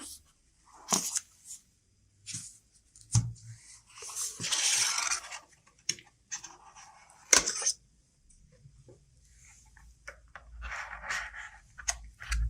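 Phone box and packaging being handled: a series of sharp clicks and taps with bursts of rustling and tearing. The longest rustle comes about four seconds in, and the sharpest click comes about seven seconds in.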